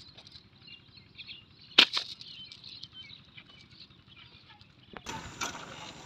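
Faint chirping of small birds, broken by two sharp snaps close together about two seconds in.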